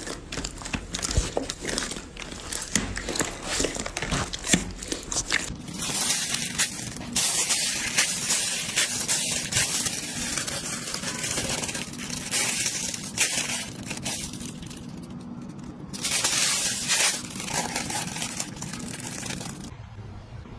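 Hands squeezing and kneading slime: wet squishing with many small clicks and pops, then stretches of crackly hiss that start and stop.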